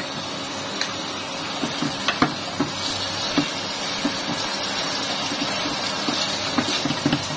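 Thick spiced dried-fish masala sizzling in an aluminium pot as it is fried down, with a wooden spatula stirring it and knocking against the pot a few times.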